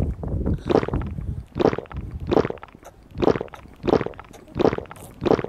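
A toddler gulping water from a straw sippy cup, swallowing in a steady rhythm of about one gulp every three quarters of a second: he is very thirsty.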